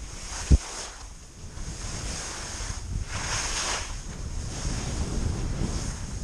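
Wind buffeting a GoPro's microphone during a ski descent, with the skis hissing over snow in swells as they turn, the biggest swell about three seconds in. A single sharp thump about half a second in.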